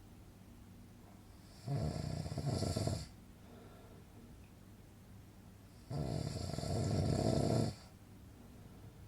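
A person snoring: two slow, deep snores about four seconds apart, the second a little longer, with quiet breathing between them.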